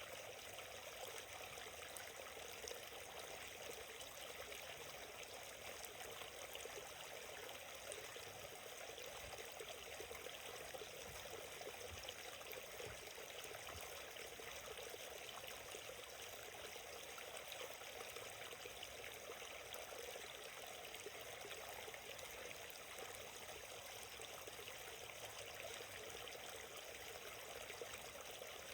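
Small forest stream flowing gently: a steady, even rush and trickle of water over stones.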